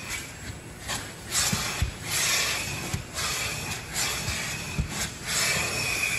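Car wash vacuum sucking through its wide hose as the nozzle is worked over a car's floor and seats: a rushing hiss that surges and dips irregularly, with a few dull knocks. A steady higher whine comes in near the end.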